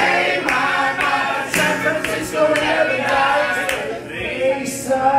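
Several voices singing a song together live, the audience singing along with the performer.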